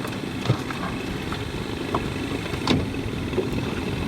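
Small boat motor idling steadily, with a few light clicks or knocks.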